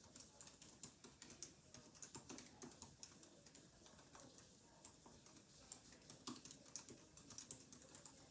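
Faint, irregular clicks and taps, several a second, from a box of trading-card packs being handled and opened.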